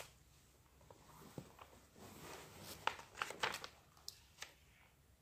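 Faint rustling and a few short taps and clicks of a picture book being handled, bunched about three to four and a half seconds in.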